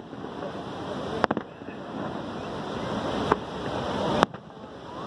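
Fireworks shells bursting overhead: three sharp bangs, about one, three and four seconds in, the last the loudest. Under them runs a steady rushing roar of falling water from Niagara Falls.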